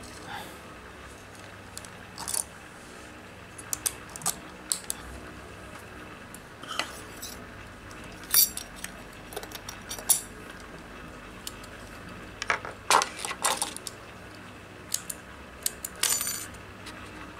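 Small metal tools and sewing-machine parts clinking and tapping in irregular sharp clicks, louder in clusters in the middle and near the end, as work goes on at the machine's thread-trimming knife.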